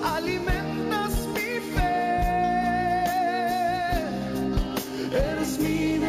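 A song playing: a solo voice sings over band accompaniment with a steady drum beat, holding one long note with vibrato from about two to four seconds in.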